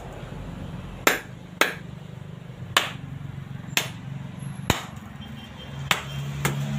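A machete blade striking the hard shell of a husked coconut, about seven sharp knocks at uneven intervals, cracking the shell open.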